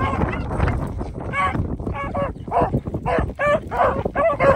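Beagles baying in quick repeated barks, about two or three a second, several hounds overlapping at different pitches: hounds giving voice as they run a rabbit.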